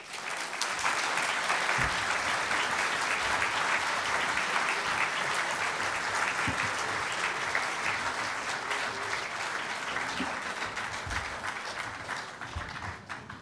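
Large audience applauding, the clapping thinning out near the end.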